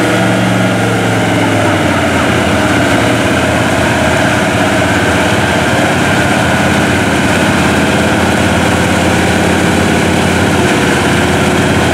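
Mud truck's engine running hard at high, steady revs, its tires spinning and throwing mud as it churns through a deep mud hole.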